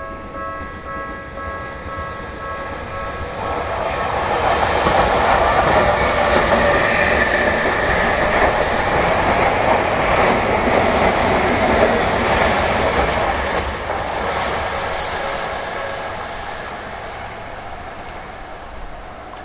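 A Tokyu Toyoko Line electric train passing through a level crossing on a sharp curve. Its running noise builds to a loud peak in the middle and then fades, with sharp high wheel squeals near the end. The crossing's warning bell rings as steady tones and stops a few seconds before the end.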